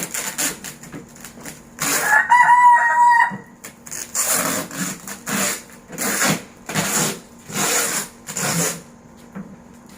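A rooster crows once, about two seconds in, a single drawn-out call lasting about a second and a half. After it comes a run of about seven short rasping noises, evenly spaced.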